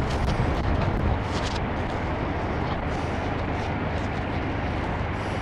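Wind buffeting the microphone, a steady low rumble, with a few short scratchy clicks in about the first second and a half.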